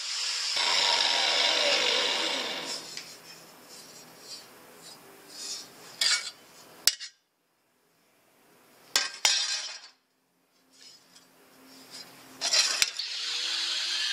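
Angle grinder grinding sheet steel, then switched off and spinning down with a falling whine. A few sharp metallic clanks follow as the steel pieces are handled, and near the end the grinder starts up and grinds steadily again.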